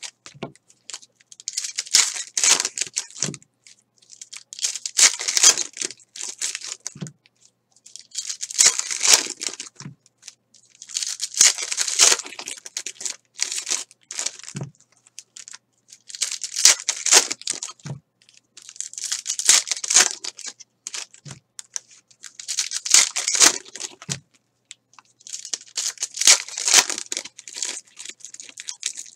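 Foil packs of 2013 Select baseball cards torn open one after another: a burst of crinkling and tearing foil about every three seconds, several followed by a soft low thump.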